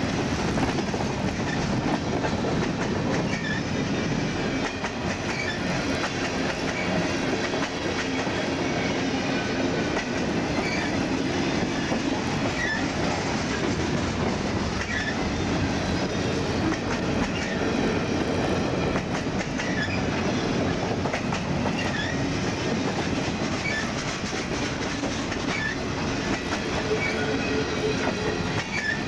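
Freight train cars rolling past, wheels clicking steadily over the rail joints, with brief high wheel squeals here and there.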